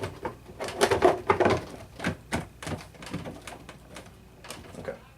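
Plastic faceplate of a water ionizer being handled and snapped onto its housing: a string of irregular clicks and taps, thinning out and getting fainter toward the end.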